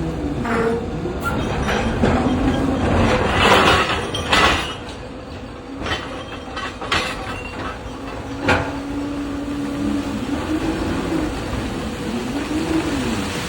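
Electric mining excavator loading ore into railway wagons: steady heavy-machine noise with a motor whine that rises and falls, broken by several sharp clanks and thuds.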